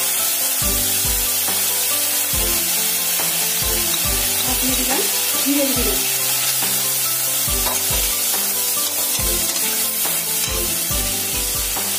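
Ginger paste, bay leaf, dried red chillies and cumin seeds sizzling in mustard oil in a metal kadai after a splash of water. A metal spatula stirs and scrapes them around the pan.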